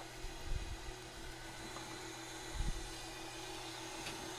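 Steady low hum and hiss with a faint held tone, broken by two soft low bumps about half a second and two and a half seconds in as the wires are handled.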